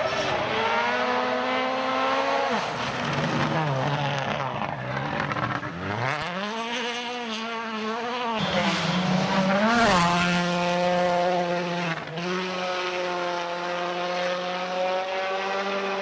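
Turbocharged four-cylinder rally cars at full throttle on a gravel stage, one after another. The engine note climbs and drops several times with gear changes and lifts.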